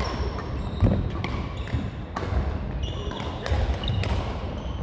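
Badminton rally: rackets striking the shuttlecock in a string of sharp smacks about every half second to a second, with shoes squeaking briefly on the court floor.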